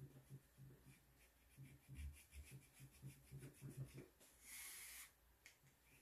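Faint quick strokes of a soft puffy eraser rubbing pencil lines off watercolour paper, with a short hiss about two-thirds of the way through.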